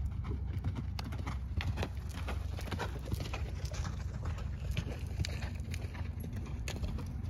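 Hoofbeats of a ridden horse moving at a quick gait over arena dirt: a fast, uneven run of short soft clicks and thuds, over a steady low rumble.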